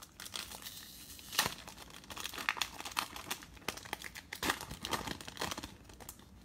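Foil wrapper of a baseball card pack being torn open and crinkled in the hands: an uneven run of crackling rustles, the loudest about a second and a half in.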